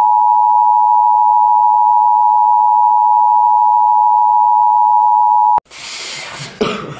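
A loud, steady electronic beep of two close tones, like a dial tone or a bleep, held for about five and a half seconds before it cuts off suddenly. A noisy rustling sound follows near the end.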